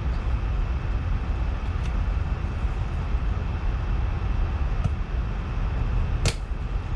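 Steady low background rumble of the room, with a few faint clicks and one sharper click about six seconds in.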